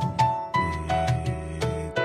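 Background music: an instrumental tune of clearly separated notes.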